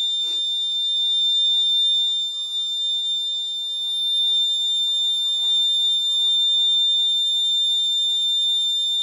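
Electronic alarm buzzer on an Arduino accident-alert board sounding one continuous high-pitched tone, set off by a high impact reading from the pressure sensor.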